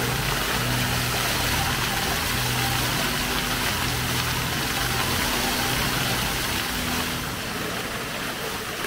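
Fountain jets spraying and splashing, a steady hiss of falling water. Under it runs a low hum that breaks off and resumes in stretches of about a second, then stops about seven seconds in.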